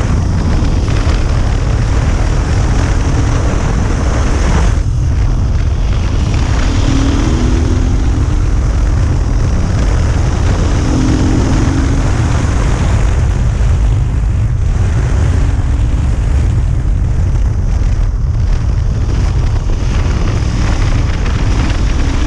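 Husqvarna FE350 dirt bike riding along, its single-cylinder four-stroke engine running under a loud, steady low rumble with no letup.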